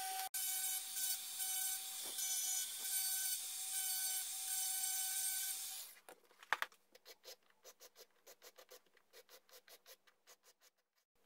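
A small rotary tool runs with a steady whine while its sanding drum rubs a wooden hub in short passes, stopping about six seconds in. A single knock follows, then a hand sanding stick rubs back and forth over the edge of a wooden wheel, about four quick strokes a second.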